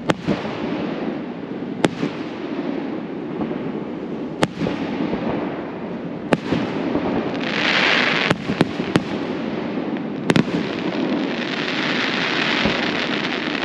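Aerial fireworks shells bursting, about eight sharp bangs a second or two apart. Twice there is a longer stretch of crackling as crackle stars go off.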